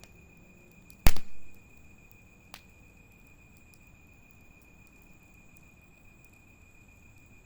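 Burning wood in a bonfire giving one sharp, loud pop about a second in, with a smaller pop right after and a faint click a second later. Faint scattered ticks and a steady high insect trill run underneath.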